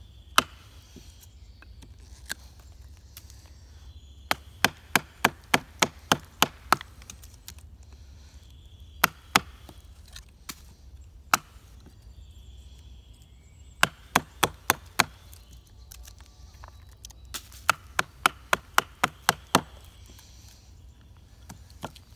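Wooden baton striking the spine of a fixed-blade knife to drive it down through a short upright piece of wood (batoning): sharp wooden knocks, some single and some in quick runs of about three a second, with pauses between runs.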